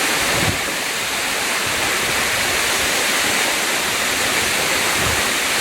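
Dankyō Falls: a waterfall's steady rush of falling water. Two brief low bumps break in, about half a second in and near the end.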